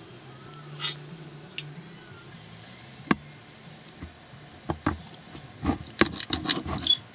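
Knife and fork cutting deer roast on a plate, the metal utensils clicking and scraping against the plate: a single click about three seconds in, then a run of clicks near the end.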